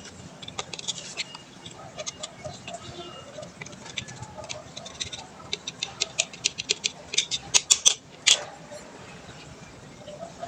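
Scattered sharp clicks and light metallic clinks of tools and brake parts being handled. About seven seconds in they come faster and louder, followed by one short scrape.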